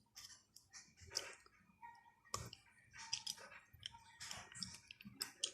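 Faint chewing with scattered small wet clicks of a mouth eating a sour gummy candy stick.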